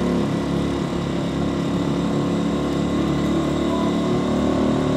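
Small motorbike engine running steadily while carrying a heavy load of boxes, with road noise underneath.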